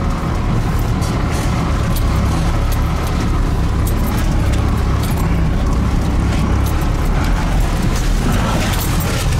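Pickup truck's engine idling steadily, heard from inside the cab, a constant low rumble, with small clicks and knocks of handling in the cab over it.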